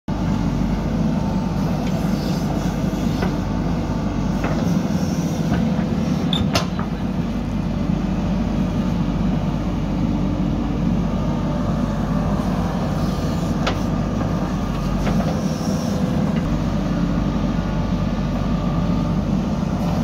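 JCB 3DX backhoe loader's diesel engine running steadily under load while the backhoe arm digs and dumps soil. A few sharp knocks stand out, the clearest about six seconds in.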